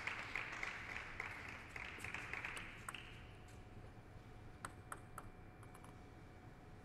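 A few people clapping in a steady rhythm, fading out about three seconds in. Then a few light clicks of a plastic table tennis ball bouncing while a player gets ready to serve.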